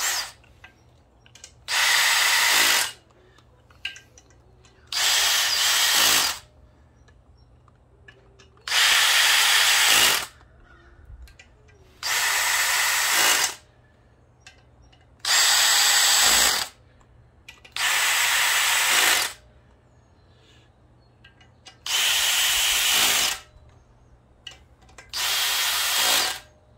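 A cordless drill with a socket spinning bolts down: eight short runs of about a second each, a few seconds apart, running the perimeter bolts of an engine block's lower girdle in snug before they are torqued.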